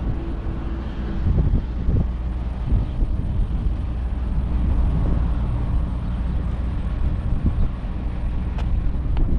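Diesel pickup truck running, heard from inside the cab as a steady low engine and road rumble.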